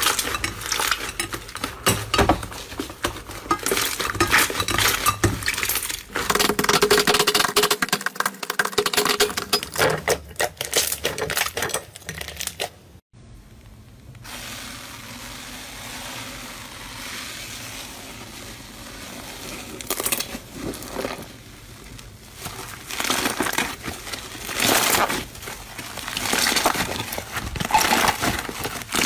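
Slime being squeezed and pressed, making dense crackling and popping clicks. About 13 seconds in it cuts to a quieter stretch, and the clicking picks up again around 20 seconds.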